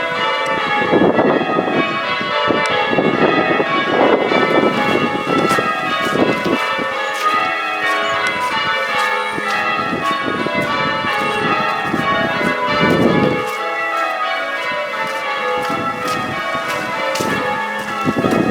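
The front six bells of a ring of eight church bells being change rung: a continuous, rapid sequence of overlapping bell strikes that ring on into each other.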